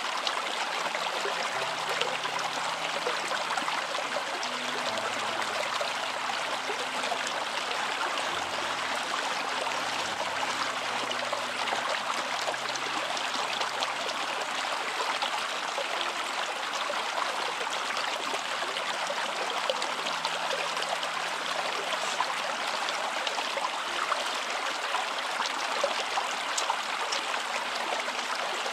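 Stream water running steadily, a continuous rushing babble.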